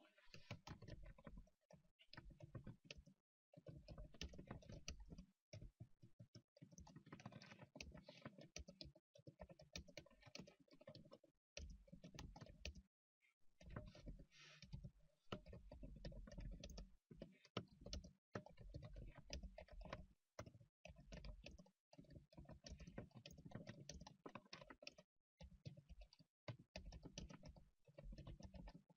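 Faint typing on a computer keyboard: fast runs of key clicks broken by short pauses every few seconds.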